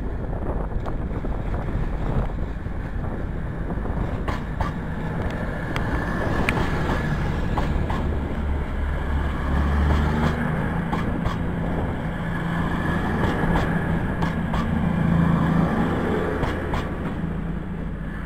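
A CrossCountry Class 220 Voyager diesel multiple unit passing through without stopping: the drone of its underfloor diesel engines swells as the carriages go by, with a run of sharp clicks, then fades as it leaves.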